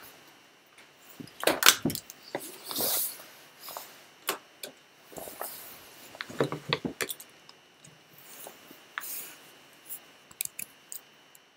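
Handling noise as the camera is picked up and carried: irregular knocks, clicks and rubbing of clothing against the microphone, with a cluster of sharp clicks near the end.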